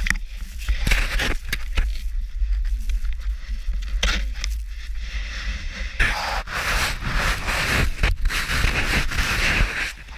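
Avalanche snow rushing and scraping close against the microphone as the rider is carried down in the slide. It makes a dense hiss full of crackles, scrapes and knocks over a deep, constant rumble, and grows louder in the second half before dropping off just before the end as the slide comes to rest.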